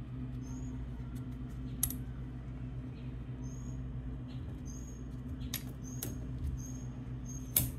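Scattered light clicks and taps, with a few faint short high squeaks, as a spin-on oil filter with neodymium magnets stuck to it is handled and set into a filter cutting tool, over a steady low hum. The sharpest click comes near the end.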